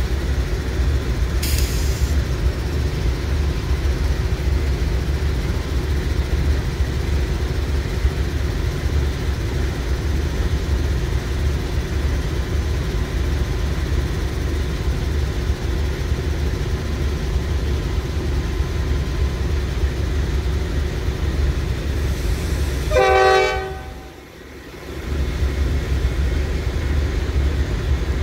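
Norfolk Southern freight train rolling past with a steady low rumble. There is one short horn blast near the end.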